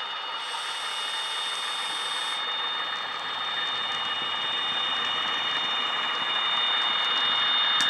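Class 88 diesel engine sound from a DCC sound decoder, played through a model Euro Dual locomotive's small speaker as the locomotive runs under power. It grows louder as the model passes, with a few clicks near the end.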